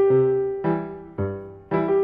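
Background music: a gentle piano-style melody with notes and chords struck about twice a second, each ringing out and fading before the next.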